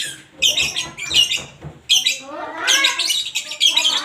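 A young male lovebird chirping and twittering in short, quick high bursts, with a few lower, bending notes near the end: a bird still learning its call.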